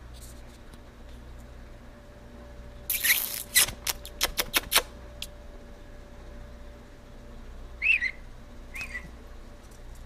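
Budgerigar: a burst of scratching and a quick run of sharp clicks about three to five seconds in, then two short chirps near the end.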